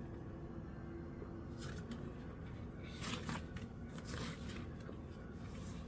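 Faint rustling of paper being handled, in a few short rustles, as an instruction booklet is leafed through.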